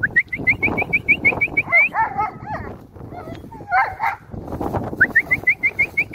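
Dogs whining and yelping in short, wavering calls, twice. Around them are two fast runs of short, high, rising chirps, about seven a second, one at the start and one near the end.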